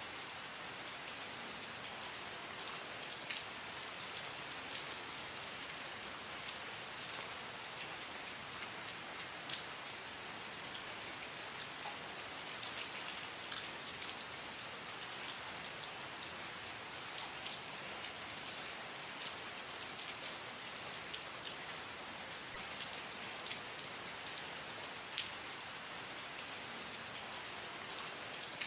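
Steady rain falling, an even hiss with many separate drops tapping close by on a hard surface.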